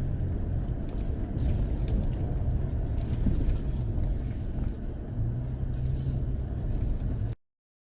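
Pickup truck driving over rough ground: a steady low rumble of engine and tyres with a few faint rattles. The sound stops abruptly near the end.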